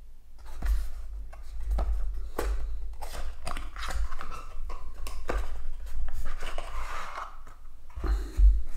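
Hands handling a cardboard coin presentation box: scraping and rustling of the card with scattered taps and clicks, and a low thump near the end as the box is set down.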